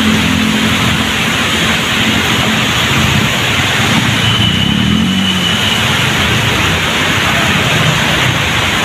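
Heavy rain falling on a flooded road with motorbike and car engines running close by in stop-go traffic, blending into a steady din.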